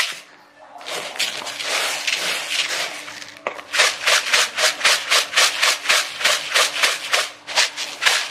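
Dry corn-rice grains sliding in a plastic basin: a continuous hiss for about two seconds, then the basin shaken back and forth so the grains swish in a steady rhythm, about four strokes a second.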